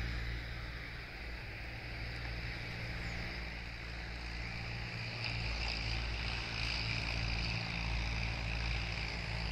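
Open-air ambience: a steady low rumble of wind on the microphone, with a high, steady insect drone that grows louder about halfway through.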